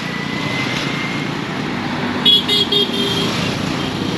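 Busy street traffic running, with a vehicle horn sounding a quick series of short beeps a little over two seconds in.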